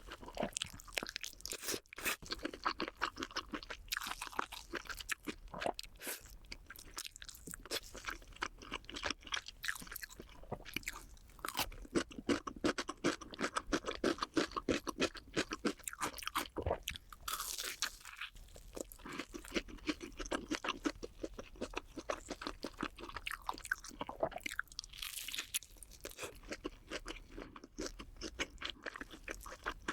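Close-up chewing of crunchy food: a fast, continuous run of crunches, several a second, with brief pauses.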